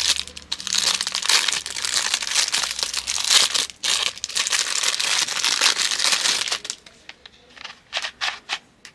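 Thin plastic bag crinkling and crackling as a small puzzle cube is unwrapped from it. Near the end come several separate sharp clicks as the stiff plastic cube is twisted.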